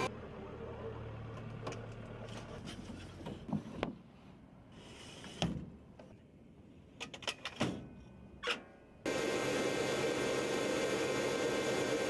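Sharp metal clicks and clanks of ordnance being handled and slid into place on a parked AH-64 Apache, over a low hum. Several come in a quick run about seven seconds in. About nine seconds in, a loud steady mechanical noise with a whine starts suddenly and holds.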